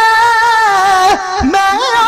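Male voice singing Punjabi kavishri without instruments, holding a long, slightly wavering note for about a second, then breaking off and starting a new rising phrase.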